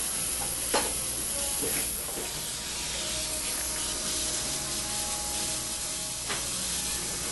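Steady hiss of dental water spray and suction keeping the surgical site wet, with a few light clicks of metal microsurgical instruments.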